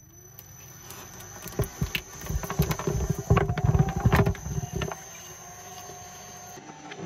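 Twin-shaft shredder running with a steady motor hum as its cutting discs crunch and crackle through kinetic sand and a soft toy. The crunching builds from about a second and a half in, is heaviest and deepest around three to four and a half seconds, then settles back to the plain running hum.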